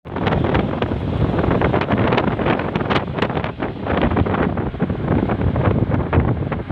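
Wind buffeting the microphone from a moving vehicle: a loud, steady rush broken by many short gusts.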